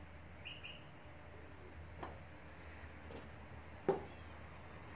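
Light metal taps and clicks of a wire hook against the rim and side of a tin of acrylic clear coat as an antler lock pick is fished out of it, the sharpest tap near the end. A short high double chirp sounds about half a second in.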